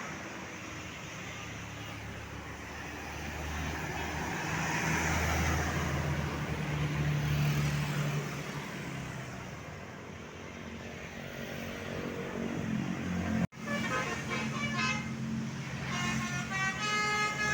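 Heavy bus engine and road noise swelling and fading as traffic passes. After an abrupt cut, a Basuri 'telolet' musical bus horn plays a quick tune of short stepped notes.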